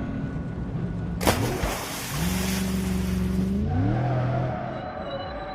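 Car engine sound, steady at first and then revving up a little under four seconds in, with a hissing, skid-like noise starting about a second in.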